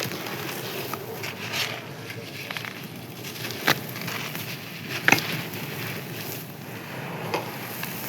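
Dry, crisp clay being crushed and crumbled: a steady crackling crunch with a few sharper snaps as pieces break.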